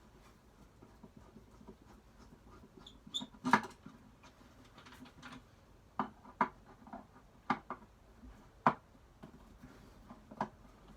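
Scattered small clicks and knocks of hands and tools working the metal hinges and flathead screws on an old wooden toolbox, with the loudest knock about three and a half seconds in and a brief faint squeak just before it.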